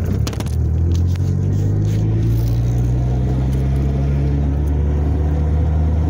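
Car with a manual transmission driving in first gear: a steady engine drone with a slight grinding noise from the gearbox, the sign of a bad transmission input shaft bearing. A few clicks come in the first second, and the engine note rises slowly as the car pulls.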